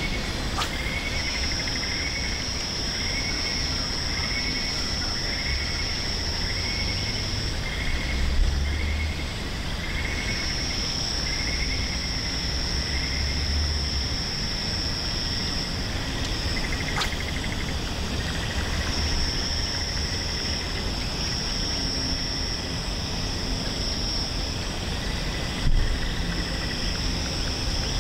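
Dusk insect chorus: a steady high-pitched buzz that comes and goes in stretches of several seconds, over a lower chirping that pulses about twice a second. Low rumble runs underneath, with a brief knock twice.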